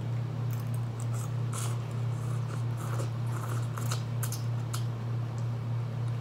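A person slurping and chewing a forkful of instant ramen noodles: a run of short, irregular wet mouth sounds from about half a second in until near the end, over a steady low hum.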